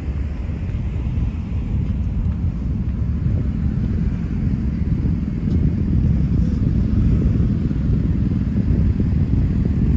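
Low, uneven rumble of road traffic, with cars and a pickup truck at a vehicle entry gate, growing a little louder about halfway through.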